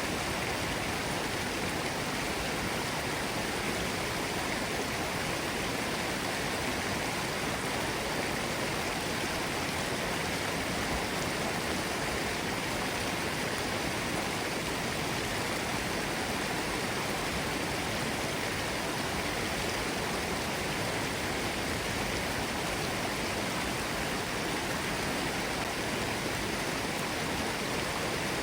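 Forest stream running over rocks: a steady, unbroken rush of water.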